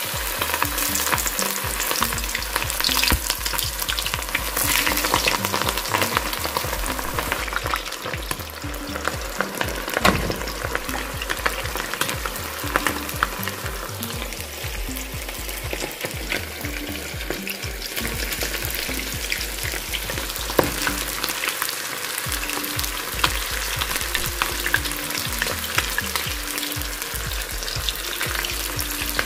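Batter-coated chicken drumsticks deep-frying in hot oil in a stainless steel pot. The oil sizzles steadily with a constant fine crackle.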